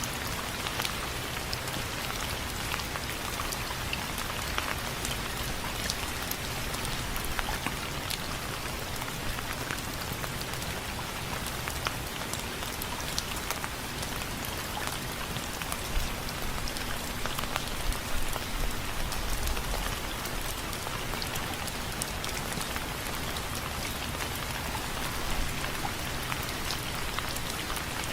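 Steady rain with many individual drops striking window frames, a few louder drops standing out now and then.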